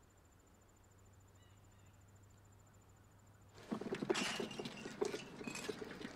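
A low hum, then about two-thirds of the way in a loud, busy clatter of many quick knocks and rattles starts and keeps going.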